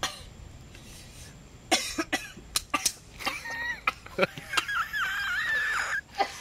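A man coughing several times in short sharp bursts, his throat burning from a whole ghost pepper just eaten, followed by a wavering strained voice.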